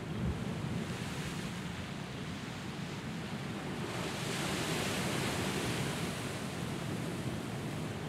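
Ocean surf washing against a rocky shoreline, one wave breaking and swelling louder about four seconds in, with wind rumbling on the microphone.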